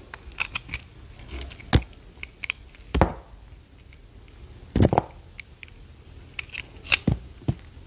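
Blade cutting through a translucent bar of soap: a run of crisp, crunching cuts and small clicks as thin pieces break off, four of the cuts louder than the rest.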